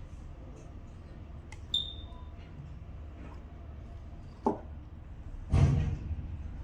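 Small metal clinks and clicks from wires and clips being handled while a regulator is being connected, one of them ringing briefly. A louder knock comes about two-thirds of the way in, over a steady low background hum.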